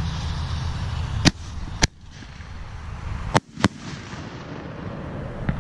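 Fireworks going off: four sharp bangs in two close pairs, the second pair about two seconds after the first, over a low steady rumble.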